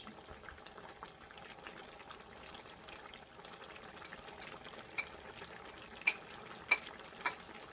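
Coconut-milk curry bubbling in the pot, with a soft steady hiss and many small pops as bubbles burst. A few louder pops come in the last few seconds.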